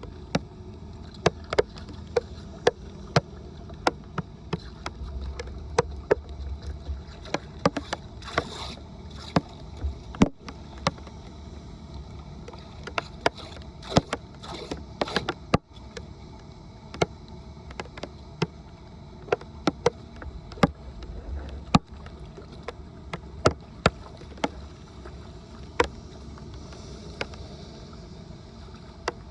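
Irregular sharp knocks and clicks, one every half second to second or so, over a steady low rush of water.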